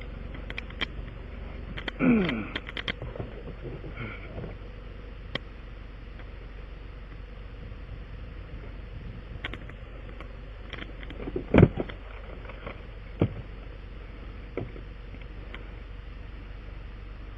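Scattered clicks and knocks from handling tire-repair tools over a steady background noise, with one loud thump about halfway through and a smaller knock shortly after.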